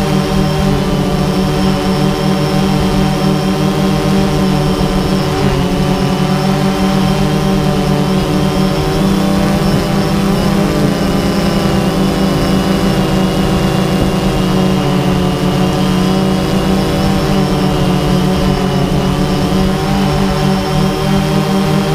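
DJI Phantom 2 quadcopter's four electric motors and propellers, heard from the GoPro mounted on the drone in flight: a steady buzzing hum made of several tones that drift slightly in pitch as the motors adjust speed.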